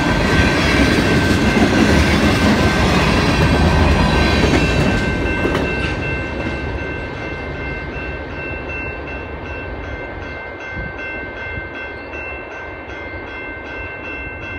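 Freight train cars rolling by on the rails, loud at first. The noise fades from about five seconds in as the end of the train pulls away, and a steady high tone lingers under it.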